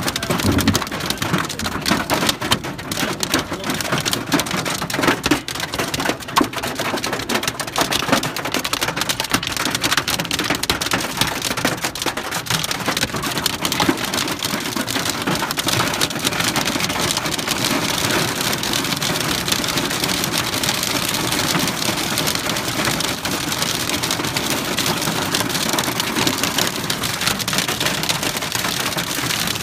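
Hail and heavy rain drumming on a car's roof and windows, heard from inside the car. There is a dense clatter of sharp stone hits through roughly the first ten seconds, which then settles into a steadier, even downpour.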